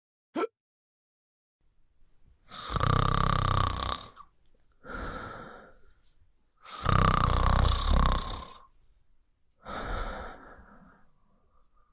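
Snoring sound effect: two loud snores, each followed by a softer out-breath, about four seconds per cycle. A brief blip sounds just after the start.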